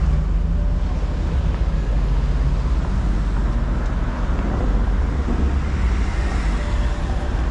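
Street traffic noise: the steady low rumble of car engines and tyres on a city street.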